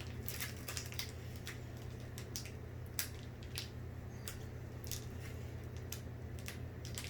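A Pokémon trading-card booster pack being opened and handled: irregular crinkles of the foil wrapper and small clicks of the cards, over a steady low hum.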